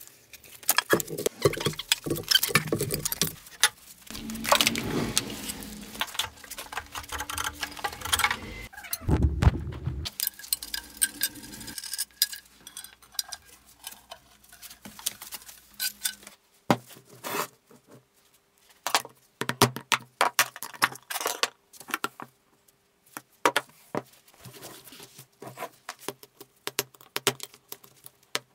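Steel parts and hand tools clinking, knocking and scraping as a cast-iron geared-head drill press is taken apart. The clatter is dense with some heavier thuds in the first half, then sparser sharp metallic clinks in the second half.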